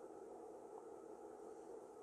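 Near silence: faint steady room tone.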